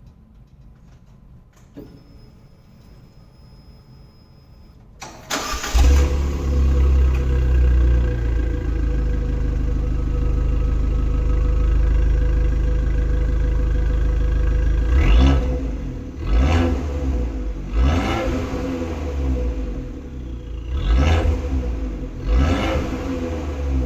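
Abarth 595's turbocharged 1.4-litre four-cylinder on its stock exhaust, started about five seconds in with a brief flare of revs, then idling steadily. In the last third it is blipped in a series of short revs, about one every second and a half.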